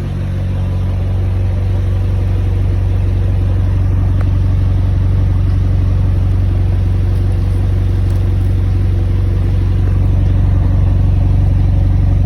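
McLaren 720S's twin-turbo 4.0-litre V8 running steadily at a constant speed, held at operating temperature to bleed air out of the refilled coolant system.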